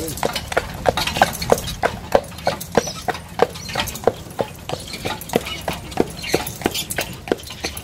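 A harness horse's hooves clip-clopping on a paved path at a steady walk, about four hoof strikes a second, with a low steady rumble underneath.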